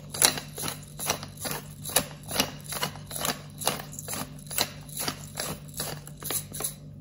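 Glass pepper shaker shaken by hand, the ground pepper rattling inside in short sharp shakes about two to three times a second, stopping near the end.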